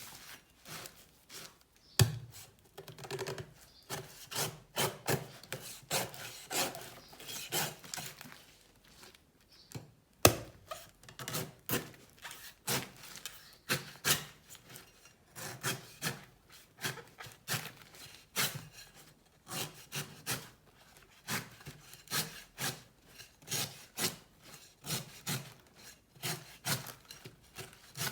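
A knife cutting into a coconut: a long series of strokes, roughly one to two a second, scraping and shaving through the fibrous husk, with two harder chops about two seconds and ten seconds in.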